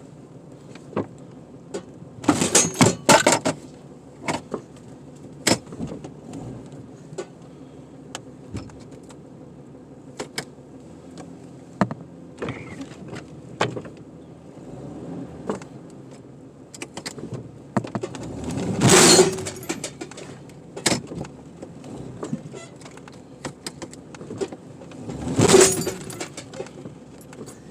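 Scattered sharp clicks, clinks and knocks from handling gear, with three louder scraping rushes, the first a few seconds in and the others near the end.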